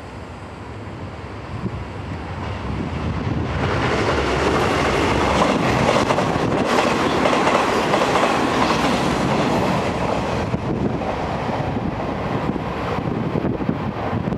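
Hanshin 8000 series electric train running on the rails. The noise grows sharply louder about three and a half seconds in, stays loud for several seconds, then eases a little.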